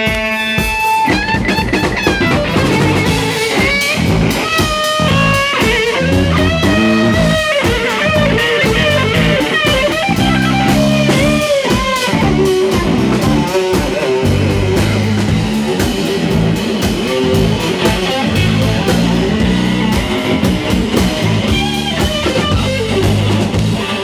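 Live blues-rock electric guitar solo full of bent notes, opening on a long held note, over bass guitar and drums.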